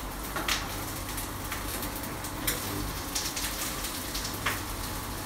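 Chopped onion sizzling steadily in olive oil in a frying pan, with a few sharp knife chops on a plastic cutting board.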